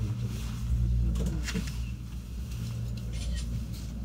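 Low, steady rumble inside a descending aerial ropeway gondola cabin, with a few light clicks and rattles about a second in and again near three seconds.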